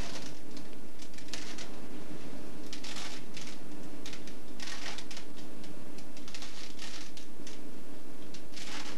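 A plastic Rubik's cube being turned by hand: irregular runs of rattling clicks from quick twists of its layers, about one burst every second or so.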